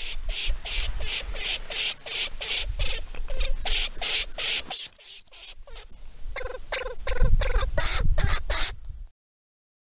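Brown lemming (Lemmus trimucronatus) giving a rapid series of short, high squeaks, about four to five a second. The calls break off for a second or so in the middle, resume, and stop about nine seconds in, over a faint low rumble.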